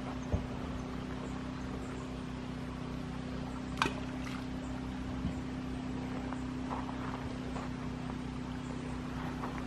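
A steady mechanical hum, like a motor running, with a couple of brief clicks, the sharpest about four seconds in.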